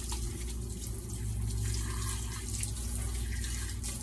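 Kitchen sink faucet running steadily while soapy hands are rinsed under the stream.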